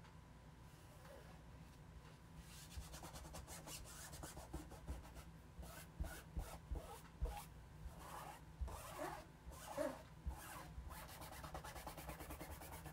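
Fingers rubbing an adhesive silkscreen transfer film down onto a wooden Christmas tree cutout, pressing it flat to work out air bubbles. The rubbing is a fast run of short, faint strokes that starts about two and a half seconds in.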